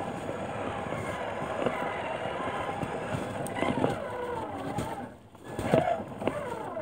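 Electric drivetrain of a Traxxas Summit 1/10 RC truck whining, its pitch rising and falling with the throttle. It dips briefly about five seconds in, then surges back.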